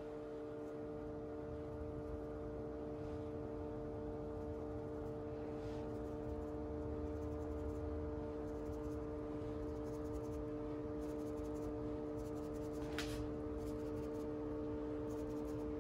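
Faint, scratchy rasps of powdered sugar being shaken through a fine-mesh hand strainer, over a steady hum.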